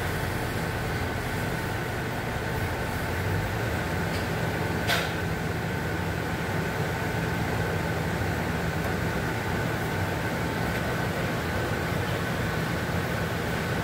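Steady machine hum with a faint high tone held throughout, and a single sharp click about five seconds in.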